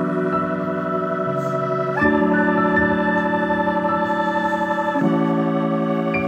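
Background music of sustained organ-like chords, changing about every three seconds.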